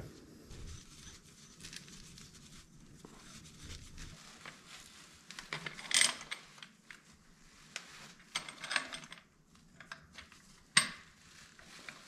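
Scattered light metallic clinks and knocks of brass plumbing fittings being handled and threaded together, with two sharper clicks, one about six seconds in and one near the end.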